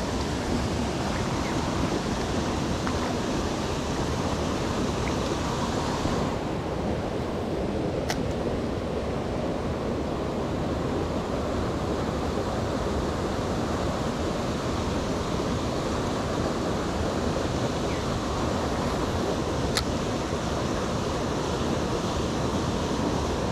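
Steady rush of flowing stream water, with a couple of faint clicks.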